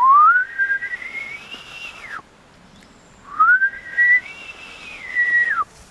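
Bull elk bugling twice with a short pause between calls. Each bugle is a high whistle that slides up, holds, then drops off sharply.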